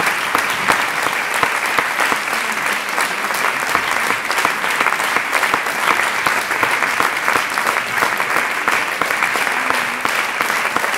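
Theatre audience applauding, a dense, steady clapping that holds at an even level throughout.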